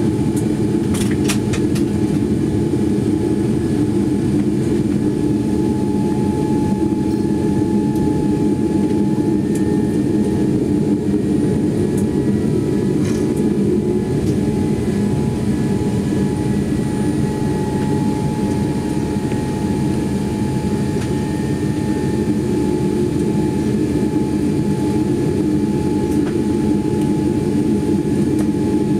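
Boeing 787-9 cabin noise while taxiing after landing: a steady low rumble of engines at idle and air handling, with a faint steady whine above it and a few light clicks.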